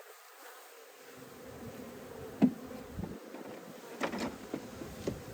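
Honeybees from a freshly installed package buzzing around the hive, a steady hum that builds about a second in. A few sharp knocks break it: a loud one about two and a half seconds in and another about four seconds in.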